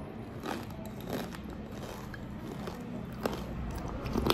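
Close-up chewing of crunchy panipuri shells: a few separate crisp crunches about a second apart, with a louder click near the end as a spoonful goes into the mouth.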